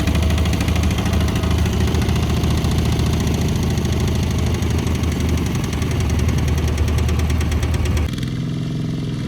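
Heavy farm machinery's engine running steadily with a fast, even clatter, cutting abruptly about eight seconds in to a quieter, deeper engine sound.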